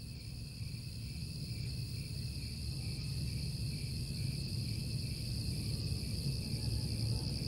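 Insect chorus of crickets trilling steadily in two high unbroken tones, over a low background rumble.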